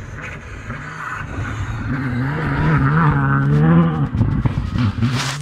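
Rally car at full throttle on a gravel stage, approaching and passing close by. The engine note rises and dips as the driver shifts and lifts, and is loudest about four seconds in. As it goes past there is a sharp clatter of gravel thrown up by the tyres.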